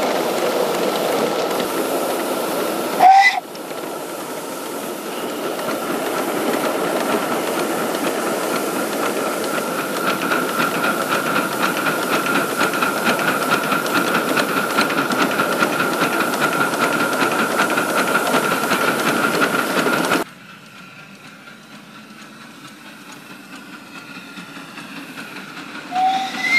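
Live-steam 5-inch gauge model steam locomotive hissing steadily with a faint steady tone in it; the hiss cuts off suddenly about twenty seconds in. Short toots of its steam whistle come about three seconds in and again near the end.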